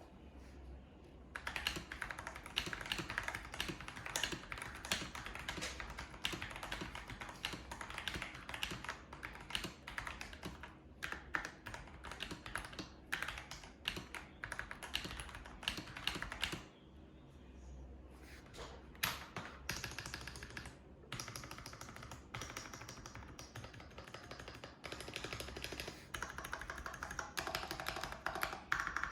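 Typing on a modded Akko 5075S V2 mechanical keyboard, with a creamy sound: a dense, quick run of keystrokes. The typing stops for about a second a little past the middle, then carries on.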